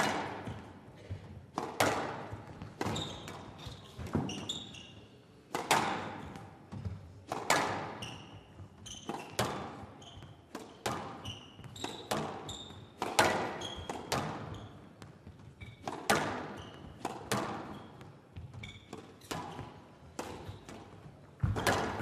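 Squash rally on a glass court: the ball cracks off rackets and walls about once a second in a steady back-and-forth, each hit ringing in the hall. Shoes squeak briefly on the court floor between the hits.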